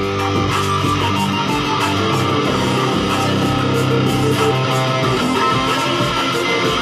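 Electric guitar played through an amplifier, holding notes and moving between them in a riff.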